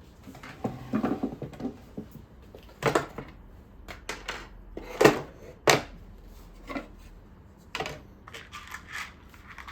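Tools and parts being moved and set down on a tabletop: irregular hard clacks and knocks, two of them loudest about five seconds in, with a softer rustle of handling near the start.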